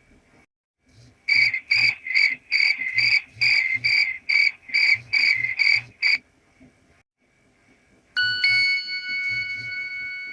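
Nokia 6820 mobile phone ringtones played through the phone's small speaker. First comes a quick run of short identical electronic beeps, about three a second, lasting some five seconds. After a two-second pause, another ringtone begins with a single bell-like chime that rings on and slowly fades.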